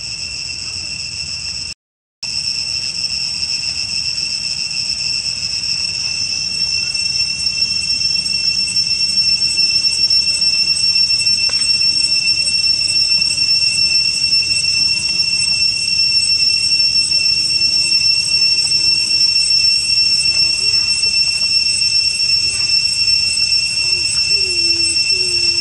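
Steady, shrill insect drone: one high whining tone with a fainter higher overtone that keeps on without a break and grows louder about six to eight seconds in. It drops out for a split second about two seconds in.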